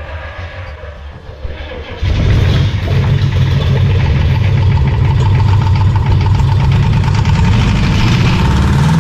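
Ford 7.3 L V8 diesel being cranked by the starter for about two seconds, then catching and running loudly. Near the end a rev rises and falls. It is the engine's first start after injector troubleshooting, with fuel now reaching the injectors.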